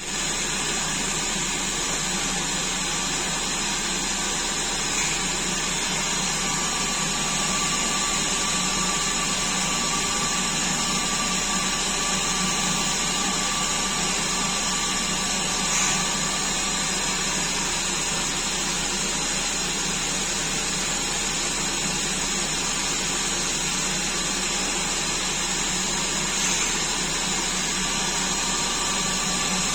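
Coronet lathe converted to CNC running steadily, an even mechanical whir with a faint high whine, broken only by a few small ticks about 5, 16 and 26 seconds in.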